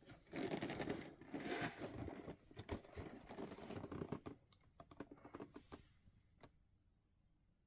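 RC buggy packaging being handled, with rustling, scratching and rapid small clicks for about four seconds, then a few scattered clicks before it goes quiet.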